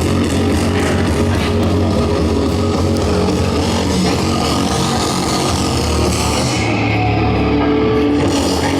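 Rock music with guitar and drums, playing loud and steady.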